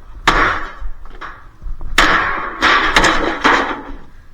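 A small axe striking a dishwasher's casing to knock its lid off: about half a dozen hard blows at uneven intervals, each with a short clattering ring.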